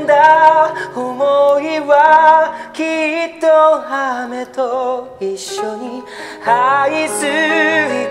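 A male singer holding long, wavering notes in a slow ballad, accompanied by keyboard and acoustic guitar.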